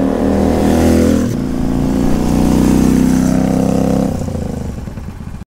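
Honda Magna motorcycle engine passing close by on the road: its note drops about a second in as it goes past, then fades as it rides away round the bend.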